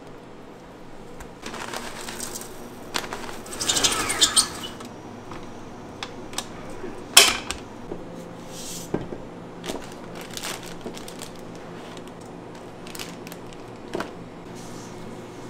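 Hands at work making macarons: scattered taps, clicks and rustling over a steady hum, with a burst of crackly handling a few seconds in and one sharp click about halfway through.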